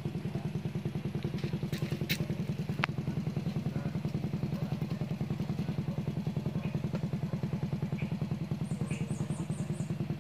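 A small engine running steadily with a low, rapid, even throb.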